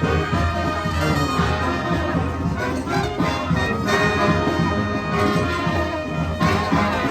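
Brass street band playing, with horns sounding several notes together over a steady low bass.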